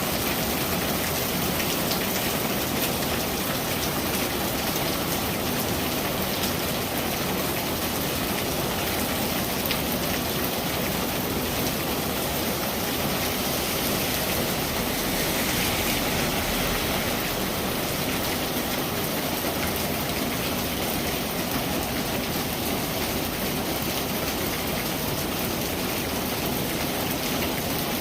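Steady rain falling, a dense, even patter of drops that holds at one level throughout.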